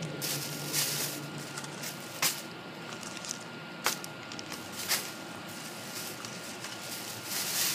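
Packaging being handled off to one side: a few sharp clicks and light rustles over a steady background hiss with a faint high hum.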